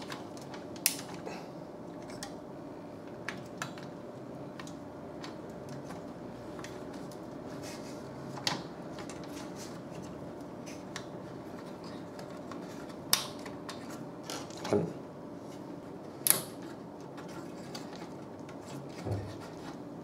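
Push-pins of a stock Intel CPU cooler being pressed into the motherboard holes, snapping home with a handful of sharp, widely spaced clicks as they lock the heatsink fan in place.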